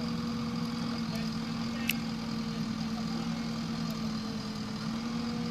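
Diesel engine idling steadily at an even pitch, with a single sharp click about two seconds in.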